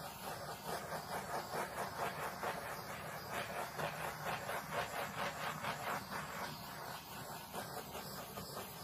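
Small handheld gas torch burning with a steady hissing flame, swelling and fading a few times a second as it is swept back and forth over wet poured acrylic paint.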